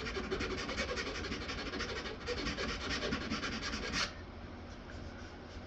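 A half-round file rasping in quick strokes along the sawn inside edge of a thin wooden tray piece, taking down the small bumps left where the scroll-saw cut met its starting point. The rasping stops about four seconds in.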